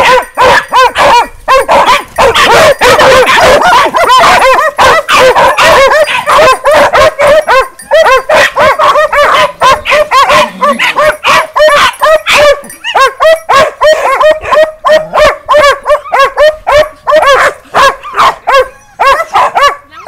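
Hunting dogs barking at wild boar through a fence: loud, rapid, high yelping barks, several a second, almost without a break.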